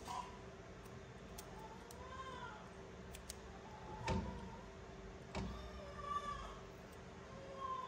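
Preterm newborn crying weakly: a string of short, thin, mewing cries that rise and fall in pitch, about one a second, with two handling knocks about four and five and a half seconds in.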